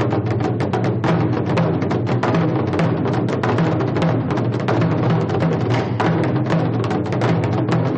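Drum beaten in a fast, continuous run of strokes, several a second, over a deep ringing low resonance.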